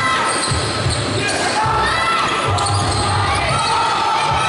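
Basketball game play in an echoing indoor hall: the ball bouncing on the court and sneakers squeaking, over the voices of players and spectators.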